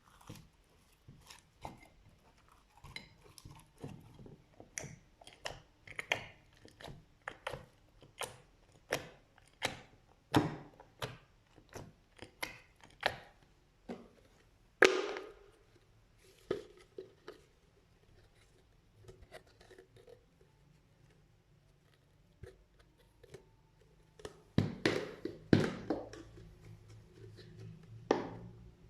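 Slime being handled, making a series of short pops and clicks at about one to two a second. After a quieter spell of several seconds past the middle, a denser cluster of louder pops follows near the end.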